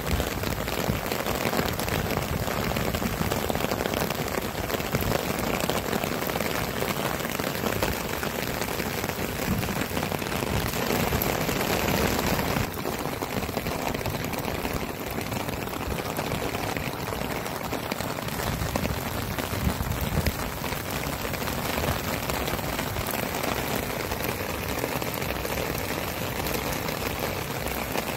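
Steady rain falling on the ground and on a wet wooden boardwalk deck. The hiss softens a little about halfway through.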